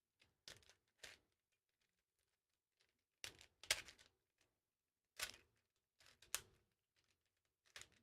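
Faint, irregular clicks and clacks of an original 1981 Rubik's Cube's plastic layers being turned by hand, working through a T-perm.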